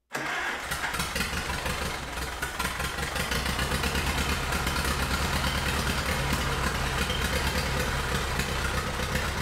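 1942 Silver King Model 41 tractor engine running at idle with an even firing beat, its magneto timing just retarded a little. It cuts in suddenly at full level and runs a little louder from about three seconds in.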